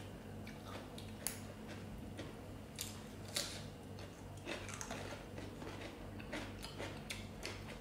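Faint crunching and chewing of raw green vegetables, heard as scattered short crisp clicks and crackles over a low steady hum.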